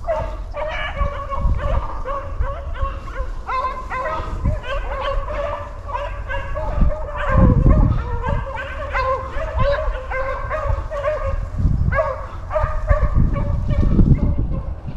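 A pack of beagles baying on a swamp rabbit's trail, several voices overlapping in a steady chorus of short, repeated bawls: the sign that the dogs are on the scent and running the rabbit.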